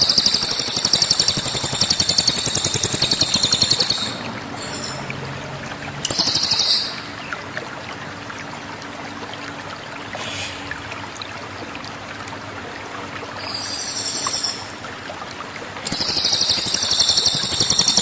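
Caged cililin songbird from Sumatra singing loud, high-pitched rapid trills in bursts. A long trill opens and another closes the stretch, with two short ones between, over a steady background hiss.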